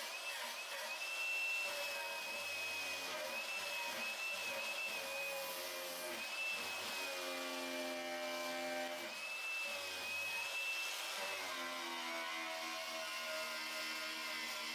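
Handheld power grinder running with a steady high whine that wavers slightly in pitch, cleaning rust off steel truck-frame metal to prepare it for welding.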